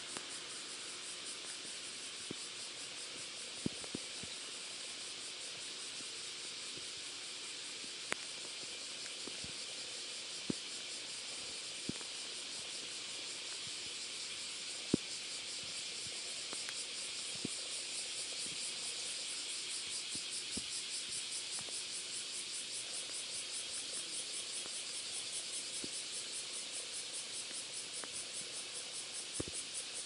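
Insects chirring steadily in a high, fast-pulsing buzz that grows stronger about halfway through, with a few scattered sharp clicks.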